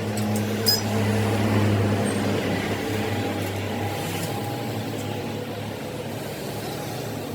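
Steady low mechanical hum with a few light clicks about half a second in, easing slowly in level.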